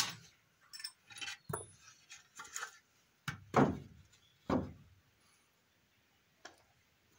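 A string of light clicks and knocks, with two louder knocks a little after halfway, then quiet.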